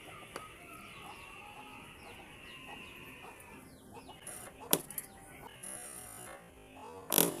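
Chickens clucking faintly. Two sharp knocks stand out, one a little past halfway and one near the end.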